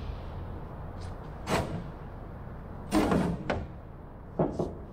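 Wooden knocks and clunks as the plywood fuselage sides of a wooden ultralight are pushed in and worked against their blocks on the workbench. One comes about a second and a half in, a louder one about three seconds in, and two quick ones near the end.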